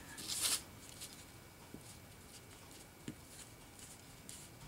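Alcohol ink applicator, a felt pad on a wooden block, being pressed and dabbed along the edge of a foil-covered card tag: a short scratchy rub near the start, then faint, scattered soft taps.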